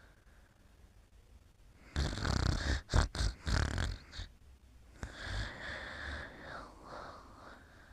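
A sleeper snoring: a loud, rough snoring breath about two seconds in, then a softer breath with a whistling note about a second later.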